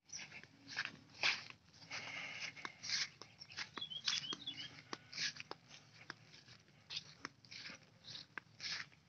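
Footsteps on a grassy dirt path, with tall grass swishing and crunching as it brushes past, in an uneven walking rhythm.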